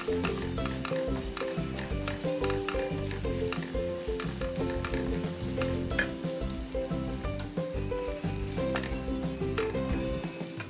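Ground chili-and-shallot spice paste with lemongrass sizzling as it fries in a stainless steel wok. A wooden spatula stirs and scrapes through it, making frequent small clicks, with one sharper knock against the pan about six seconds in.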